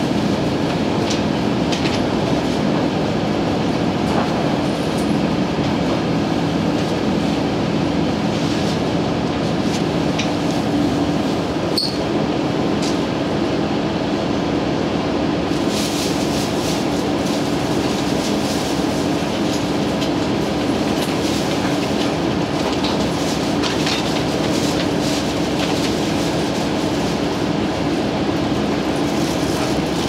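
KiHa 110 series diesel railcar running, heard from inside the passenger cabin: a steady engine drone with wheels rolling on the rails and scattered clicks.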